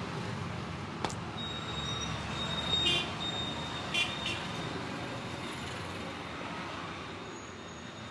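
Steady roadside traffic rumble, with a single sharp click about a second in and two short high beeps around three and four seconds in.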